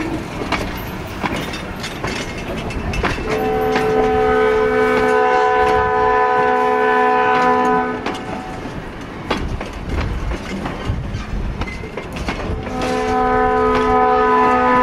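Passenger train cars rolling past with wheels clicking over rail joints, while the locomotive horn sounds a chord in two long blasts for the crossing: one starting about three seconds in and lasting several seconds, another beginning near the end.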